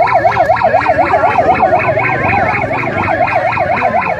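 Police electronic siren in a fast yelp, its pitch sweeping rapidly up and down several times a second without a break.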